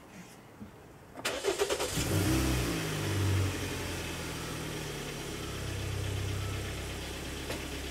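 Hyundai Santa Fe engine being started: the starter cranks for under a second, beginning about a second in. The engine catches, flares up in revs and settles into a steady idle.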